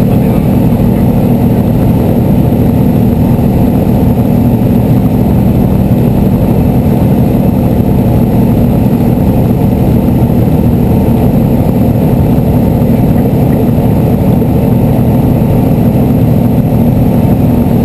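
Steady drone of a light aircraft's engine and propeller in level flight, heard inside the cabin.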